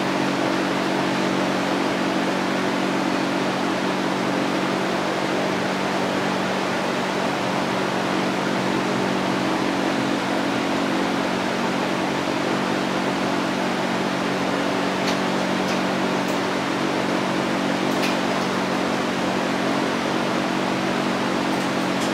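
Steady mechanical whir with a rush of air and a low hum that holds level throughout, like a running fan or blower; a couple of faint ticks near the end.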